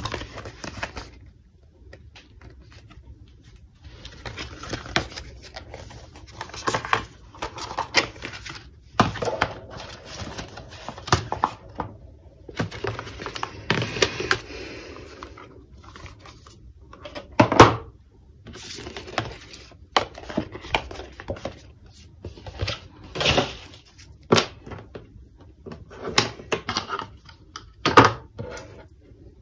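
Cardboard packaging being handled: an unfolded box insert and paper sleeve rustling and creasing, with irregular clicks and taps as the silicone sport band pieces are taken out and set down on a wooden table. The sharpest taps come a little past halfway and near the end.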